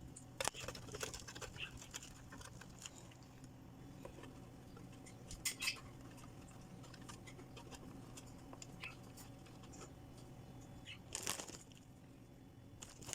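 Kitchen handling sounds: scattered light clicks and taps of utensils and dishes, with two louder clatters about five and a half and eleven seconds in, over a steady low hum.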